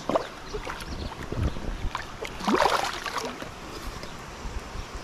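Water splashing as a large hooked redtail catfish (pirarara) thrashes at the surface close by. The loudest splashing comes about two and a half seconds in.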